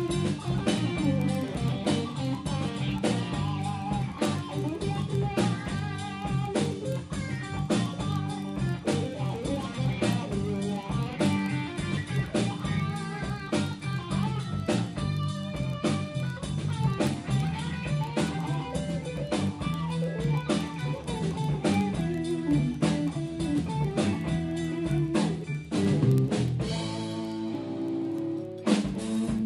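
A band playing an instrumental stretch of a song: guitar over bass and a drum kit.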